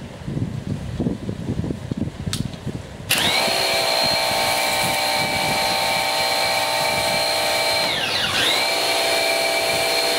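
Bosch EasyAquatak 110 electric pressure washer starting up about three seconds in as the trigger is pulled: its motor and pump run with a steady high whine over the hiss of the water jet. Near the end the motor briefly winds down and back up as the trigger is let go and pulled again.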